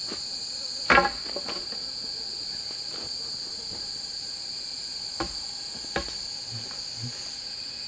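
Steady high chirring of a forest insect chorus. About a second in there is a sharp knock with a brief ring, and two lighter knocks come at about five and six seconds.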